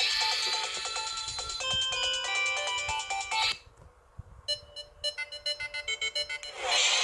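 128-chord polyphonic ringtones from an EVER EV-K100 mobile phone: one melody ends about three and a half seconds in with a short swoosh, and after a brief pause the next ringtone starts with quick, clipped notes, building into another swoosh near the end.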